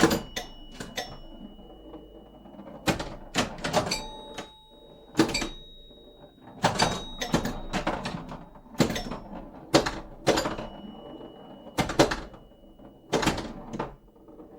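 A series of sharp knocks and clacks at irregular intervals, several followed by a thin ringing tone that hangs on for a second or two.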